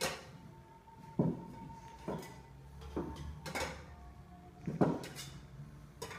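Metal tubes and prop bottles of a bottles-and-tubes magic trick being lifted and set down on a cloth-covered table: about half a dozen separate clunks.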